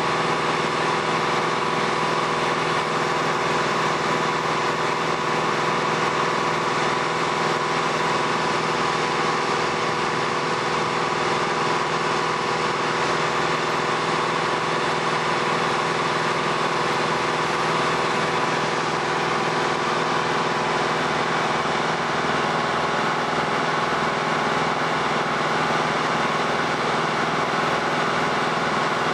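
Diesel engine of a road-rail excavator running steadily, with a constant whine held over it.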